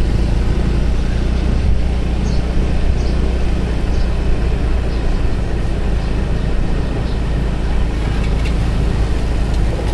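Steady running noise of a motorbike being ridden along a street, a low rumble with no breaks.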